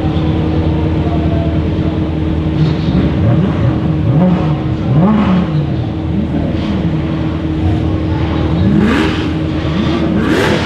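Several supercar engines idling together, with one engine blipped again and again in short revs that rise and fall in pitch about once a second, starting a couple of seconds in.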